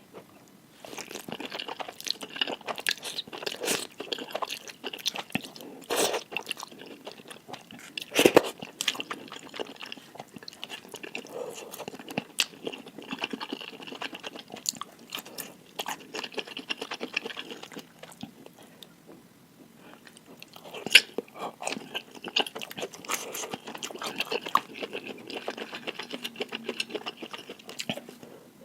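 Close-miked chewing and biting of spicy instant fried noodles, thick with added capsaicin: dense wet clicking mouth sounds in two long bouts, with a pause of about two seconds around the middle and a few louder bites.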